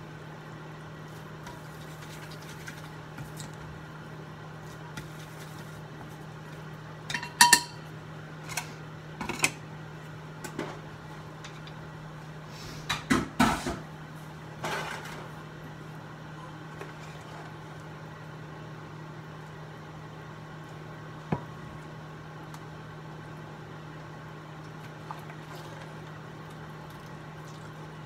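Kitchen cookware and utensils clattering and clinking: a few knocks and a ringing metal clink about seven seconds in, a louder cluster of clatters around halfway, and one sharp click later. A steady low hum runs underneath.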